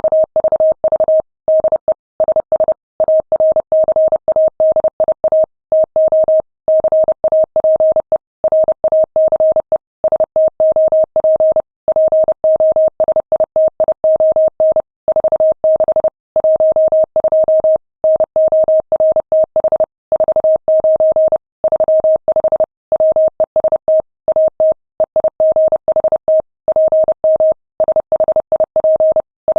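Morse code sent at 30 words per minute as a single clean tone keyed rapidly on and off in dots and dashes, with short gaps between letters and words. It is a steamship's radio message traffic.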